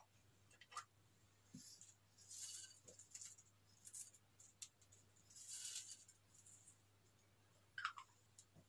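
Faint rattle of sequins and star glitter shaken out of a small plastic container, in two short bursts, with a few soft clicks from opening the container early on.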